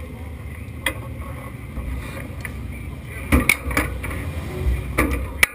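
Low rumbling wind noise on the car-mounted camera's microphone, with scattered clicks and knocks from the driver handling his harness and gear in the cockpit: one click about a second in, a short cluster of knocks past the midpoint, and more near the end.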